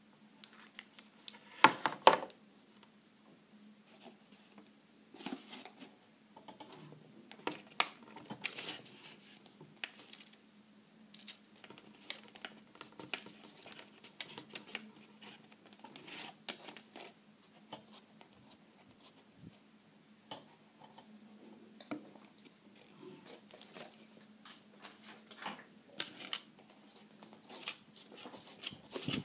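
Folded pink cardboard being handled and pressed by hand: scattered rustling, crinkling and small taps, with a couple of louder knocks about two seconds in and a faint steady hum underneath.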